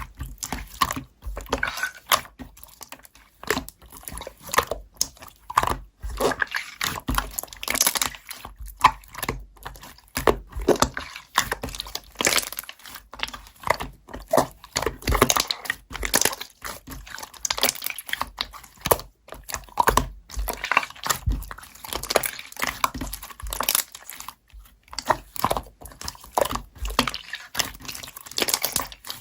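Slime being squished and worked by hand, a continuous run of irregular small crackles, clicks and pops.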